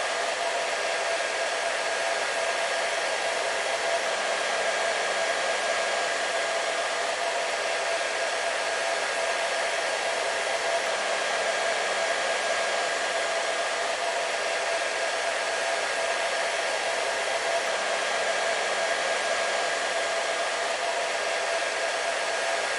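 Hair dryer running steadily: a constant airy hiss with a faint even whine from its motor and fan.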